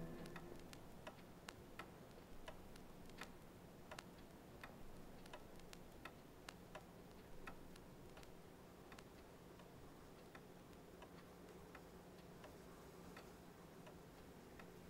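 Near silence: faint room tone with a low steady hum and scattered faint ticks at uneven spacing, which grow sparser in the second half.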